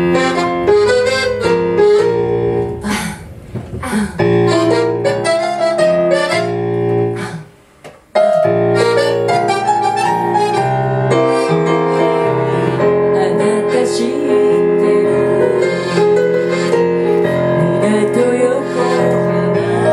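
Yamaha CP stage piano and accordion playing a slow instrumental piece. Struck piano chords open it, the music drops away briefly about eight seconds in, then long held chords carry on over the piano.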